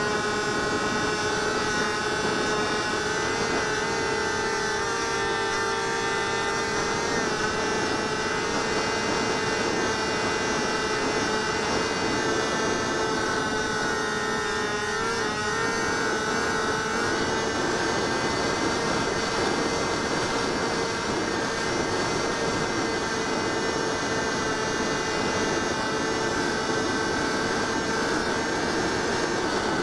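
Electric motor and propeller of a HobbyZone Delta Ray RC plane in flight, picked up by a camera mounted on the airframe: a steady whine with airflow hiss. The whine shifts in pitch a few seconds in and wavers for a couple of seconds about halfway through, as the throttle changes and the plane manoeuvres.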